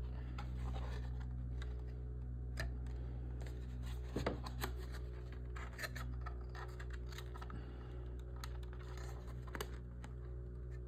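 Plastic model-kit parts, the interior wall pieces of a Millennium Falcon model, being handled and snapped together: scattered light clicks and scrapes, with a few louder clicks about four to six seconds in. A steady low hum runs underneath.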